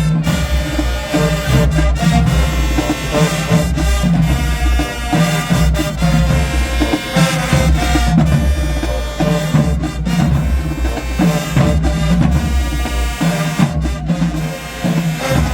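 High school marching band playing a halftime show: brass over a pounding bass-drum and percussion beat.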